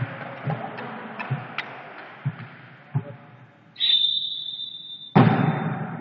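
Volleyball referee's whistle, one steady blast of about a second and a half, after fading applause and a few soft thuds of the ball. A sharp, loud slap of the volleyball being struck, the serve, follows about a second later.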